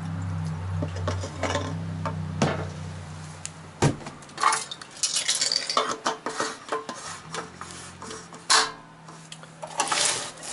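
Gasoline pouring from a gas can's spout into a small engine's fuel tank for the first few seconds. It is followed by a series of plastic and metal clunks and clicks as the spout comes out, the fuel cap is screwed on and the engine is handled.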